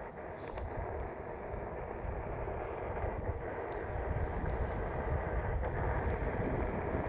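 Wind and road noise from riding a Onewheel Pint X over asphalt: a steady rush of air and tyre rolling, growing slightly louder toward the end.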